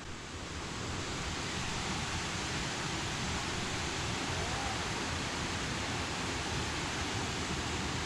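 Waterfall water rushing steadily: an even, unbroken hiss.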